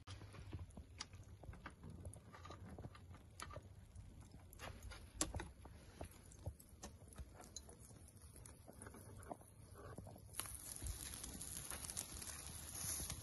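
Metal kebab skewers clicking and knocking against the rim of a steel charcoal grill as they are laid side by side over the coals. About ten seconds in, a steady high hiss sets in.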